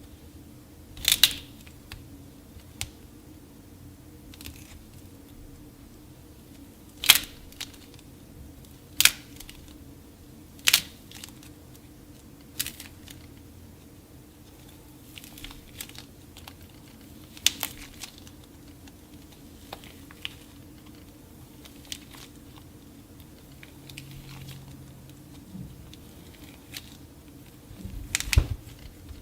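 Hardened clay being cracked and crumbled by hand: about ten separate sharp snaps with crumbly crunching, spaced irregularly. The loudest come about a second in, around seven seconds in, and near the end.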